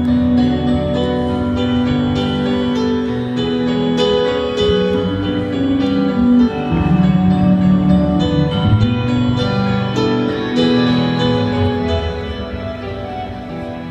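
A rock band playing live: an instrumental passage of sustained chords with keyboard, the last stretch of a song after its final sung line, growing quieter near the end.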